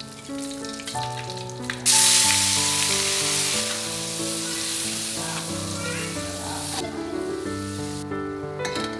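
Food sizzling in hot oil in a pan. The sizzle starts suddenly and loudly about two seconds in, then eases off after about five seconds to a quieter frying sound. Background music plays under it.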